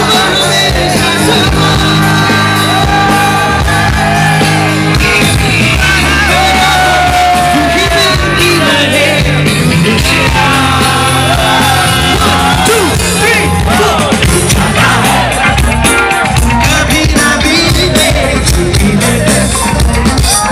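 Live band playing amplified rock-style music with singing, while people crowded close around the microphone sing along and shout. Drum hits come through more plainly in the second half.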